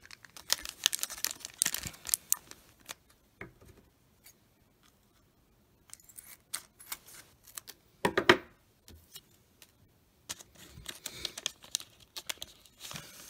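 Foil wrapper of a trading card pack crinkling in the hands and being torn open, in bursts of crackling, with a louder crackle about eight seconds in.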